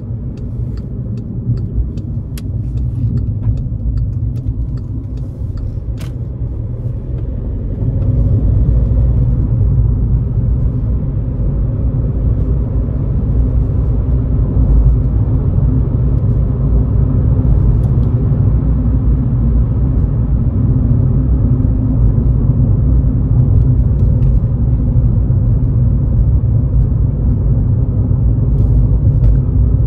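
Cabin sound of a Škoda Fabia 1.6 TDI four-cylinder turbodiesel on the move: a steady engine drone mixed with tyre and road rumble. The sound steps up in loudness about eight seconds in and then holds steady. Faint, evenly spaced ticks come in the first few seconds.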